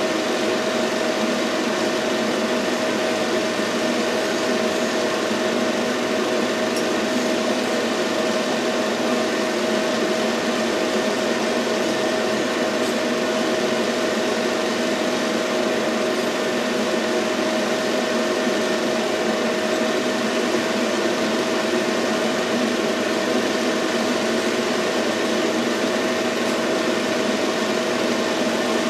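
Steady mechanical hum over an even hiss, with one constant mid-pitched tone that never changes.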